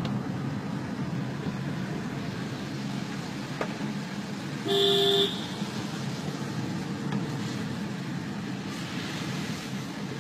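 Steady road and engine noise of a moving vehicle on a mountain road, with a single short vehicle horn honk, about half a second long, around the middle.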